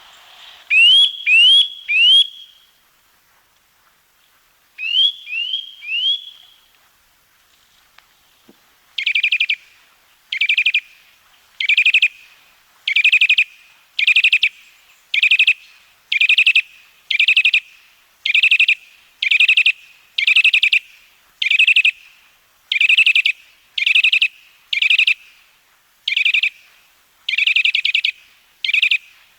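Eurasian nuthatch calling: two groups of three rising whistled notes, then from about nine seconds a run of short, fast trills, each about half a second long, repeated roughly once a second.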